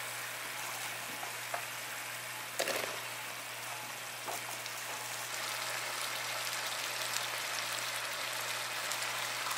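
Onion and butter sizzling in a stainless-steel sauté pan, a steady frying hiss, with a few light knocks as roasted chestnuts are dropped in.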